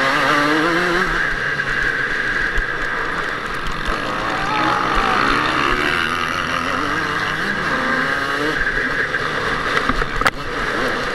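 Kawasaki KX125 two-stroke motocross bike at race speed, its engine pitch rising and falling again and again as it revs through the gears, with other motocross bikes running close by. A sharp knock about ten seconds in.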